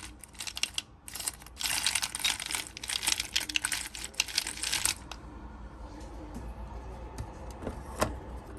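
Metal coffee capsules clinking and rattling against each other as a hand rummages through them in a plastic bowl, for about five seconds, then one sharp click near the end.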